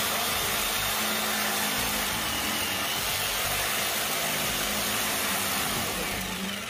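DeWalt jigsaw running steadily, its blade cutting through a clamped wooden board; the noise drops off near the end.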